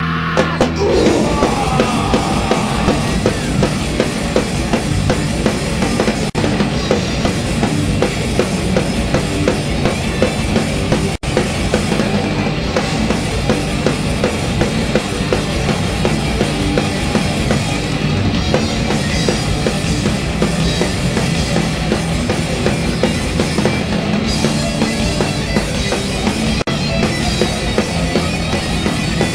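Heavy metal band playing live at full volume, with rapid, driving drum-kit beats and bass drum under the band. The sound cuts out for an instant about eleven seconds in.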